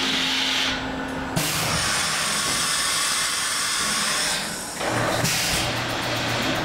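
CNC milling machine carrying out an automatic tool change at the start of its spindle warm-up program. A short steady motor whine is followed by about three seconds of air hiss, then a steady low machine hum from about five seconds in.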